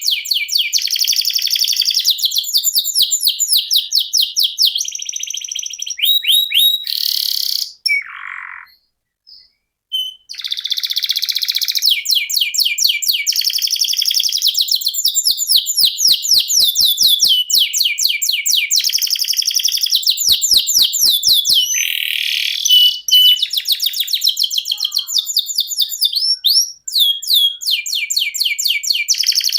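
Canary singing long rolling trills, runs of rapid repeated high notes that go on for seconds at a time. The song breaks off for about two seconds near a third of the way in, then resumes.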